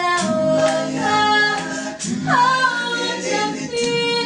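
Unaccompanied voices singing in harmony: a low backing part repeating a short figure under a higher voice that holds long notes and slides down in pitch about two seconds in.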